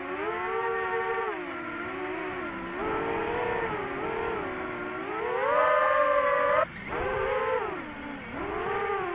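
DJI FPV drone's motors and propellers whining, the pitch rising and falling again and again. It climbs to its highest a little past halfway, cuts out for a moment, and picks up again.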